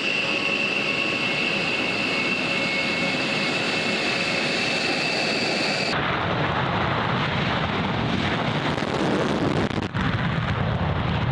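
Military jet aircraft engines running. At first a steady whine with high tones; about six seconds in it changes abruptly to a deeper, rumbling jet roar.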